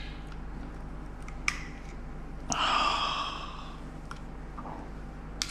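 Cooked mud crab shell being cracked and picked apart by hand: a few small sharp clicks. About two and a half seconds in comes a breathy sigh, the loudest sound.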